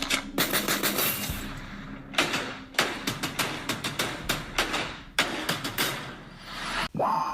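Wordless music from a mixtape: a run of sharp percussive hits with no vocals. A held pitched tone comes in near the end.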